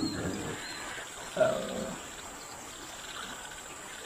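An animal call: a short pitched call about a second and a half in, lasting about half a second, after the tail of a louder call right at the start.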